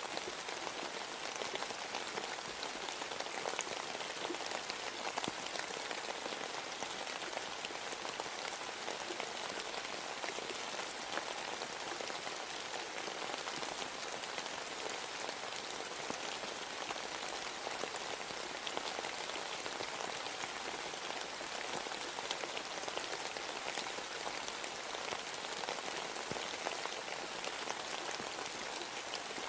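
Steady rain ambiance: an even hiss of falling rain, with many small separate drop taps running through it.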